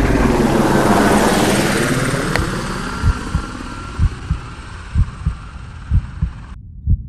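Edited trailer-style sound effects: the long, slowly fading tail of a deep boom, then a low double thump about once a second, like a heartbeat.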